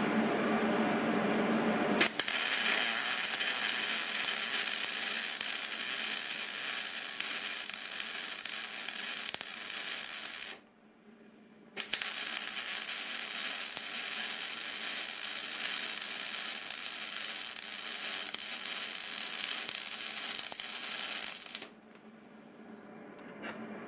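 Aluminium MIG welding arc from a spool gun, a steady hiss, in two runs of about eight and ten seconds with a stop of about a second between them. For the first two seconds there is a lower steady hum instead.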